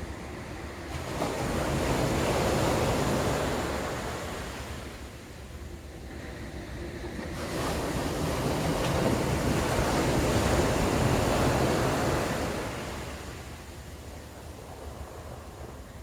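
Rushing surf-like noise, swelling and fading away twice, like waves washing in.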